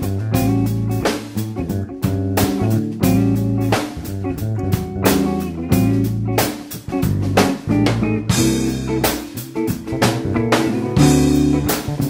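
Background music with guitar and a drum kit keeping a steady beat.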